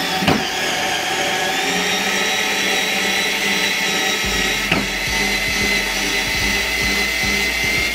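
Xiaomi Mijia cordless electric screwdriver's motor running continuously under heavy load, turning a very long screw in wood. A steady whine, running slowly, with a light click about five seconds in.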